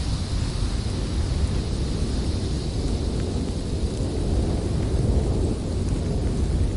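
Blizzard wind blowing hard and steadily, a deep rumbling of gusts on the microphone with a fainter hiss above it.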